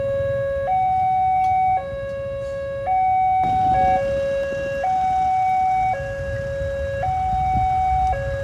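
Level-crossing warning alarm sounding a two-note electronic hi-lo tone, each note held about a second, over the low rumble of motorcycle traffic. It signals that a train is approaching and the crossing is closing.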